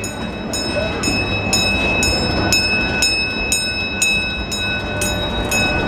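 A train bell ringing steadily about twice a second, each strike ringing on, over the steady low rumble of the scenic railway train running.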